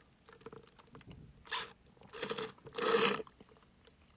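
Cola being slurped through a plastic straw from a nearly empty cup of ice, with air drawn in along with the last of the drink. There are three noisy slurps in about two seconds, the last the longest and loudest.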